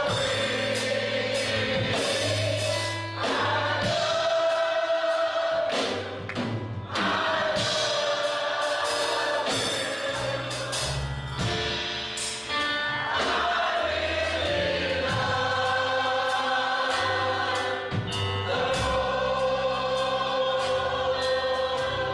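Gospel choir singing with instrumental backing, held sung notes over a bass line.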